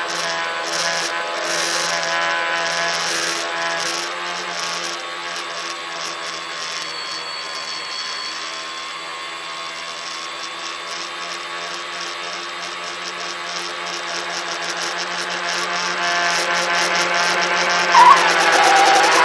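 Electric motors and propellers of a tricopter in flight, a steady whine of several tones over a fluttering hiss, picked up by a phone mounted on the craft. Near the end a louder wavering tone cuts in.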